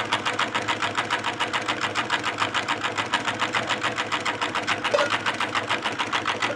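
Homemade drink-can Stirling engine running with a fast, even clacking. The clacking is mostly the piston catching a little in its cylinder, because the crank throw is too long for the cylinder.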